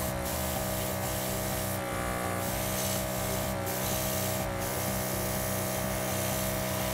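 Iwata Neo Air mini compressor's small DC motor running steadily at its high-speed setting: a clearly noisier whirring hum, like a little motorbike. Short hisses of air come from the Iwata HP-CH airbrush as it sprays, four times, the second one longer, about two seconds in.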